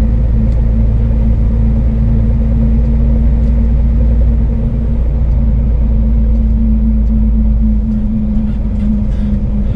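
Scania S500 truck's engine running steadily while cruising, heard inside the cab as a constant low drone with a steady hum and road rumble.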